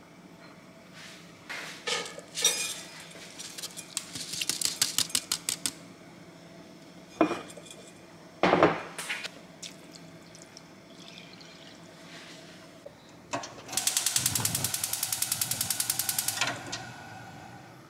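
Kitchen work: utensils knocking and clinking against dishes, with a quick run of clicks about four seconds in, two single knocks in the middle, and a fast, even rattle for a couple of seconds near the end.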